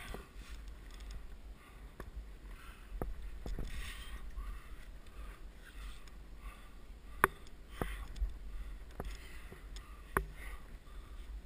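A climber working up a tight sandstone chimney: clothing and a helmet-mounted camera scraping and rustling against the rock, with several sharp clicks and knocks, the loudest just after seven seconds and another near ten seconds.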